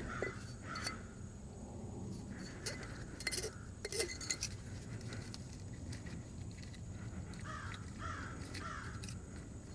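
Faint clicks and clinks of the aluminium seal-installer tool and parts being handled, a few separate taps about a second, three and four seconds in.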